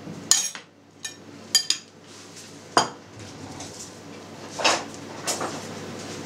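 Ceramic plates and a cutting board being set down and shifted on a table: a handful of separate light clinks and knocks.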